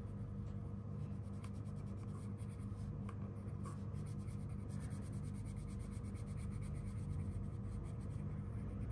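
Pink wax crayon rubbing on paper in rapid short strokes as a small area is coloured in, a fine scratchy sound over a steady low hum.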